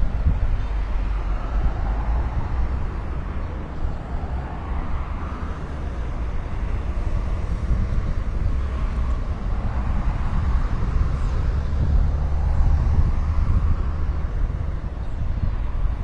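Heavy construction machinery, excavators and dump trucks, working on an earthworks site: a steady low rumble that swells and eases.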